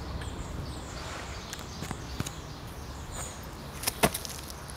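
Quiet outdoor background with scattered faint clicks, then a few sharp knocks about four seconds in as the hand-held camera is jostled and swung.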